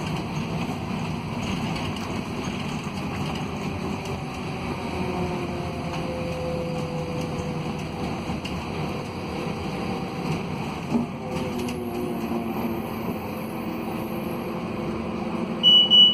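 Scania DC09 five-cylinder diesel of a Scania K280UB city bus pulling under load, heard from inside the passenger cabin over steady road noise, its note rising slowly. A single knock comes about eleven seconds in, and a rapid high electronic beeping starts just before the end.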